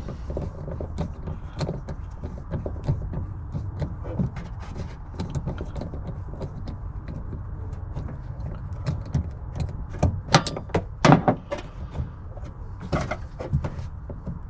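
Hand tools clicking and knocking against metal fittings and parts as a car's fuel feed line is worked loose, with a louder cluster of sharp knocks about ten seconds in and again near the end.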